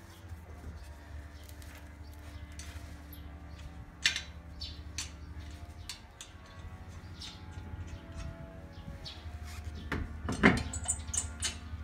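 Lug nuts being threaded on by hand and a steel wheel being handled on a car's hub: scattered small metallic clicks and knocks, the sharpest about four seconds in and again near the end, over a low steady hum.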